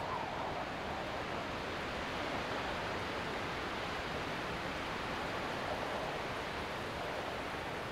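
Steady rushing noise of a distant waterfall, falling water heard as an even hiss.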